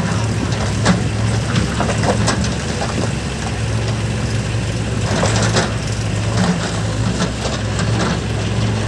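Engine of a JCB or tractor running steadily at a low, even speed, with scattered clanks and knocks over it.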